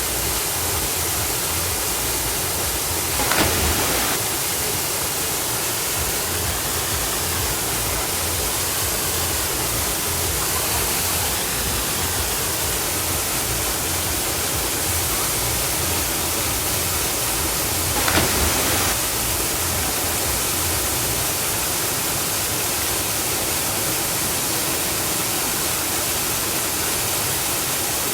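Waterfall rushing steadily, with two short louder bursts of noise, one about three seconds in and one about eighteen seconds in.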